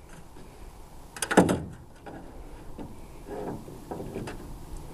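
A few knocks and clattering handling sounds, the loudest cluster about a second and a half in, with softer knocks after it.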